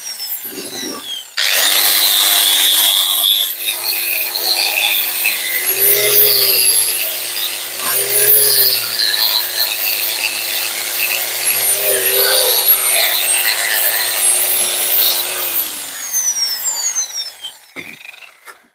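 Electric angle grinder scouring old paint and rust off a steel car suspension coil spring: a steady motor whine with metallic scraping as the attachment works along the coils. Its pitch lifts briefly a few times, and near the end it is switched off and winds down.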